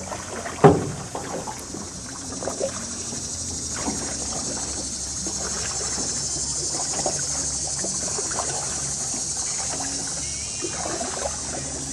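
Canoe being paddled through still flood water: small paddle splashes and drips, with one sharp knock of the paddle against the hull less than a second in. A steady high hiss runs underneath.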